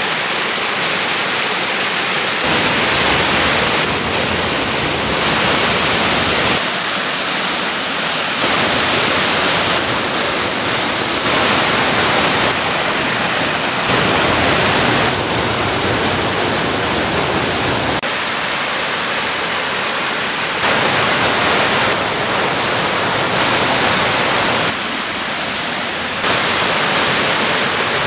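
Water rushing over a concrete dam spillway and down its steps, a loud, steady rush whose level and tone shift abruptly every few seconds.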